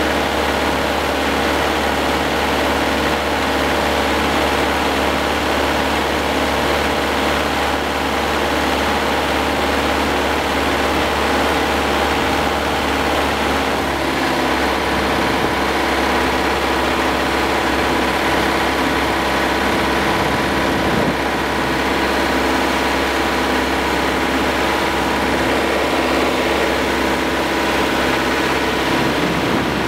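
Hürlimann D70 tractor's diesel engine running steadily while driving, heard close from the driver's seat; the engine note changes about halfway through.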